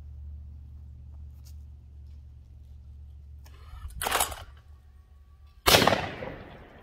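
An electric clay thrower snaps as it launches a target about four seconds in, followed by a steady whine until the shot. A second and a half later comes a single shot from a 12-gauge over-and-under shotgun, the loudest sound, ringing out and fading over about a second.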